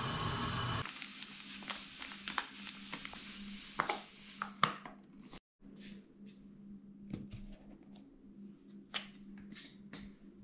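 Light clicks and taps of birch-bark canisters and their wooden lids being picked up, opened and set down on a glass tabletop, over a faint steady hum. A short stretch of steady rushing noise cuts off under a second in.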